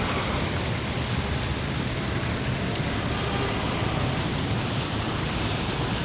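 Steady rushing outdoor traffic noise: a constant even hiss of vehicles passing, with no distinct events standing out.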